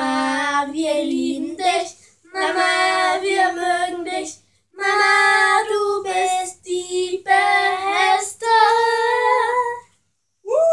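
Two young girls singing a German song together without accompaniment, in several phrases broken by short pauses for breath.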